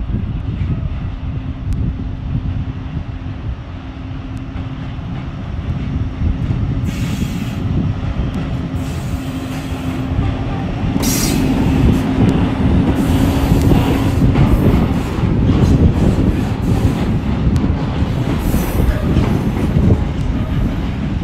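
Freight train hauled by an ÖBB Taurus electric locomotive rolling past: a dense rumble and clack of wagon wheels on the rails, with a steady hum for the first part as the locomotive goes by. There are brief high-pitched wheel squeals, the clearest about seven and eleven seconds in.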